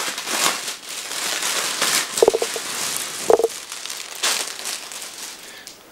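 Thin clear plastic packaging bag crinkling and rustling as hands handle it and take out a hydration bladder and drink tube, with two short squeaky sounds about two and three seconds in.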